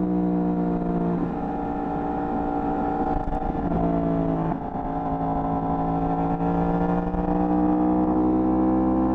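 Yamaha R1's inline-four engine with stock exhaust, running under load while riding. The note holds steady, steps in pitch about a second in and again near halfway with a short dip, then rises slowly.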